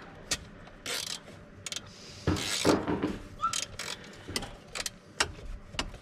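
Hand socket ratchet clicking in short, irregular runs as bolts are snugged down, with some scraping and handling of metal parts.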